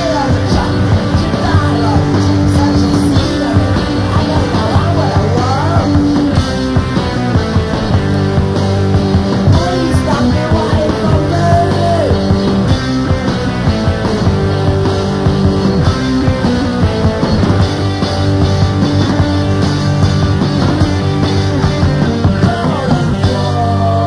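Loud punk rock played by a band on electric guitar, bass guitar and drums.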